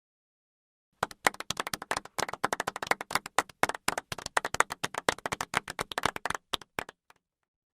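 Golf clap from a large crowd: polite, restrained applause that starts about a second in, keeps up as dense overlapping claps, then thins to a few last claps and stops near the end.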